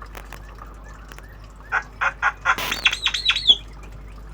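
Javan myna calling: a quick run of harsh chirps, then a rapid string of looping whistled notes, lasting about two seconds from around a second and a half in.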